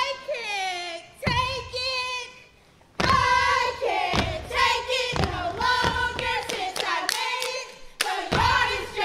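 Step team chanting in unison while stomping and clapping out a rhythm. The voices and strokes stop for a short near-silent beat about two seconds in, then the stomps and claps come back thick and fast under the chant.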